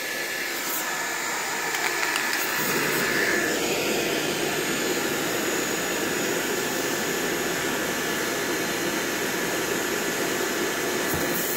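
Pressure washer running, its wand spraying a jet of water against a vehicle: a steady, even rushing noise that grows fuller about two and a half seconds in.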